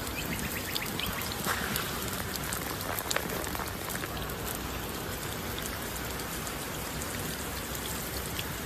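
Water sprayed from a hose hissing and pattering on a giant tortoise's shell and the ground, a steady patter with scattered sharp droplet ticks.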